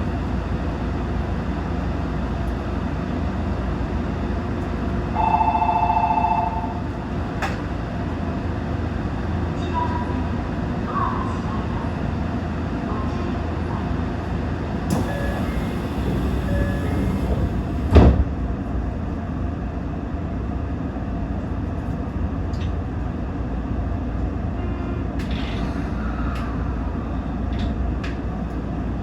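Toyo Rapid Railway 2000 series electric train running steadily, heard from inside the car. A brief two-tone chime sounds about five seconds in, and a single sharp knock about eighteen seconds in.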